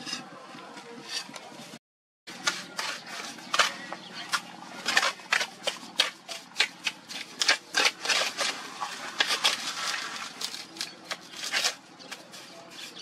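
A mason's trowel working wet mortar on small bricks, with many irregular sharp scrapes and clicks of steel on mortar and brick. The sound cuts out briefly about two seconds in.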